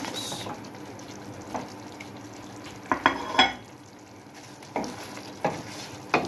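Fried chicken pakoras being stirred into simmering karahi masala in a metal pot with a wooden spatula: a low, steady sizzle with scattered knocks and scrapes against the pot, the loudest a quick cluster about three seconds in.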